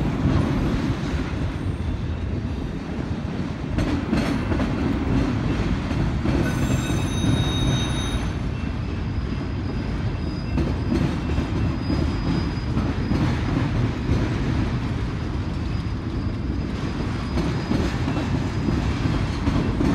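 Freight train of autorack cars rolling past, a steady low rumble of steel wheels on rail. High-pitched wheel squeal comes in briefly about six to eight seconds in.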